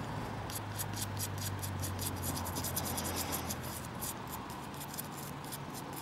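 Toothbrush scrubbing dirt off a medieval spectacle buckle, with quick back-and-forth scratchy strokes, several a second, that stop just before the end.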